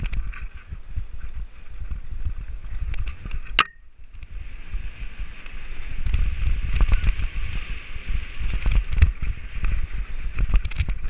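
Mountain bike riding fast down a dirt trail: a continuous rumble and rattle from the tyres and frame, with frequent sharp clicks and knocks. A sharp clack comes about three and a half seconds in, followed by a brief lull.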